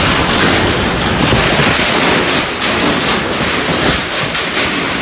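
Typhoon-force wind roaring in gusts and buffeting the microphone, rising and falling in strength with a few sharp crackles mixed in.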